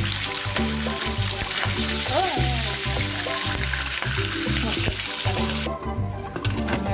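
Background music with a steady beat over bacon sizzling in hot oil in a wok. The sizzle cuts off suddenly near the end while the music carries on.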